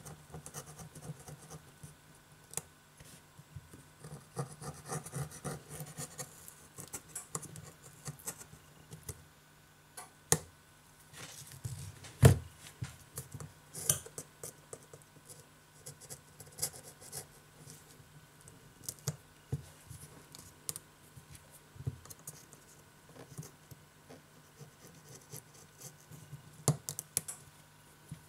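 Flat metal scraper blade scratching leftover silicone-like adhesive off a Huawei Mate 8's metal midframe in short, irregular strokes, with a few sharper taps of metal on metal. The loudest tap comes a little after twelve seconds.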